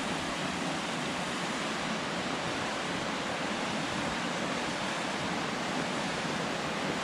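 Rushing creek water, a steady even rush with no breaks.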